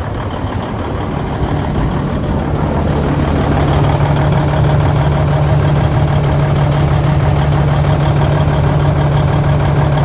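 Cabover semi truck's turbo diesel idling with its engine cooling fan blowing, heard close beside and under the truck; the sound grows louder over the first few seconds, then holds steady.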